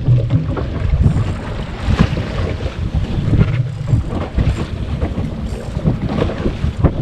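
Wind buffeting the microphone aboard a small fishing boat on the sea, with an uneven low rumble and scattered knocks and splashes against the hull.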